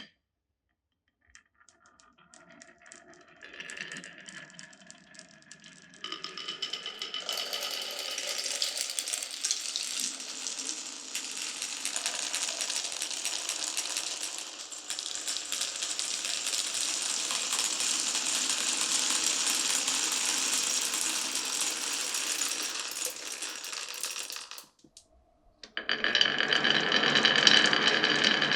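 Glass marbles rolling and clattering through a marble run, a faint rolling that builds up after a couple of seconds into a dense, steady clatter of many small clicks. It cuts off suddenly near the end, and a different sound with steady ringing tones starts.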